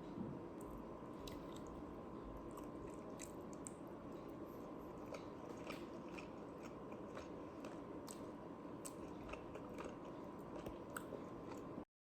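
Someone chewing and biting food, with many small crisp clicks and crunches over a steady low hum. The sound cuts off abruptly near the end.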